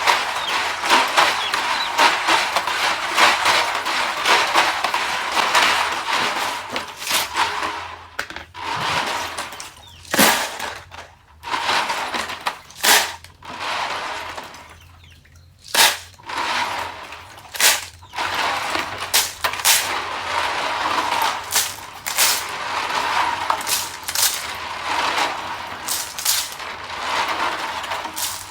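Repeated sharp clicks and knocks of hard objects over a steady clattering rattle, with a few louder single knocks in the middle stretch.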